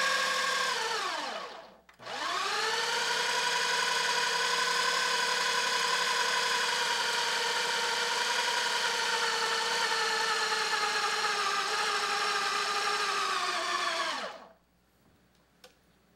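Ninja Mega Kitchen System (BL770) motor base running its dough program, the dough blade mixing pizza dough in the processor bowl. A short run winds down and stops about two seconds in, then the motor restarts and runs steadily for about twelve seconds before winding down to a stop near the end.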